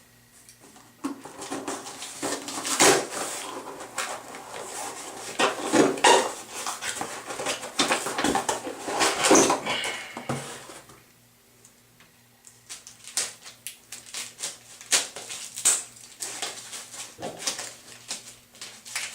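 A cardboard shipping package being opened and its contents handled: a busy run of rustling, tearing and sharp plastic clicks, with a quiet pause a little past halfway before the clicking resumes.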